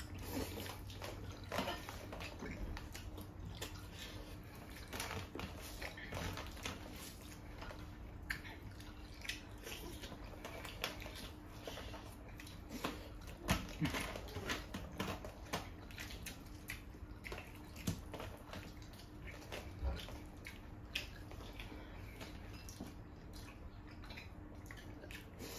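Quiet, close eating sounds: fingers squishing and mixing rice into curry gravy, with wet chewing, lip smacks and small irregular clicks and squelches.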